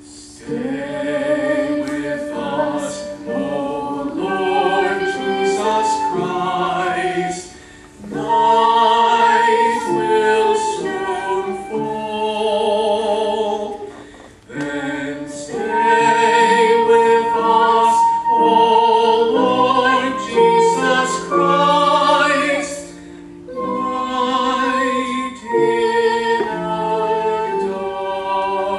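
Live singing of a slow song: a voice with vibrato on long held notes, with brief pauses between phrases.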